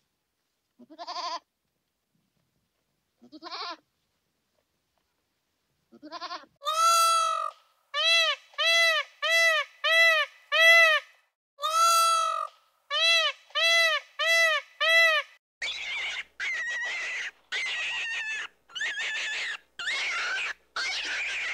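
A run of animal calls: three short cries rising in pitch, spaced a couple of seconds apart, then a quick series of about a dozen arched, pitched cries, then harsher, raspier calls near the end.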